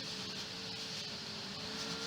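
Chevy Luv pickup running on the road: a steady engine hum under road and wind noise, the engine note sagging slightly before it begins to climb near the end.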